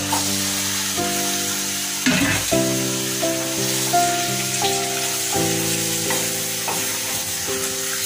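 Raw beef pieces sizzling in hot oil and fried spice paste in a steel pot as they are stirred with a wooden spatula. Instrumental background music with slowly stepping notes plays along.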